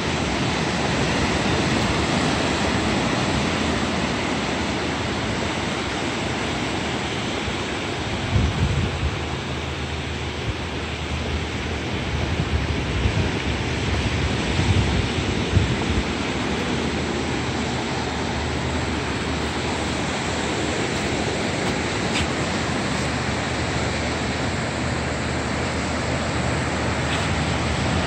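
Ocean surf breaking on the beach below, heard as a steady wash of noise. Wind gusts on the microphone twice in the middle.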